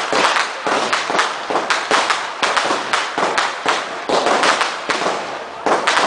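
Dense barrage of Class 2 consumer fireworks: rapid, overlapping bangs several a second over continuous crackling, easing briefly near the end before the bangs pick up again.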